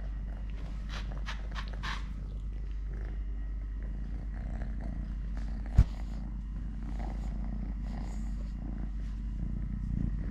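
A cat purring steadily. There are a few brief clicks or rustles about a second in, and one sharp thump a little past the middle.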